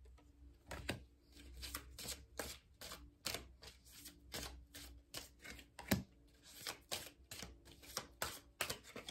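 Tarot deck being shuffled and handled: a run of soft, irregular card clicks and taps, with one louder tap about six seconds in.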